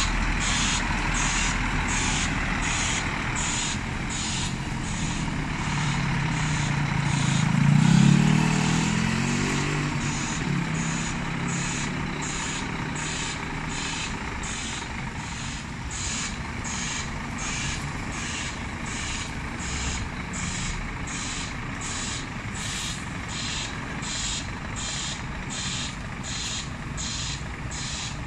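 Scania G440 truck's reversing alarm pulsing steadily, a little more than once a second, over its six-cylinder diesel engine as it backs up. The engine revs up and back down about eight seconds in.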